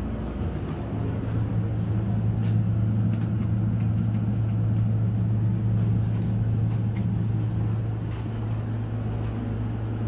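Elevator car standing at a floor with a steady low hum, with a few light clicks as a floor button is pressed and the doors close.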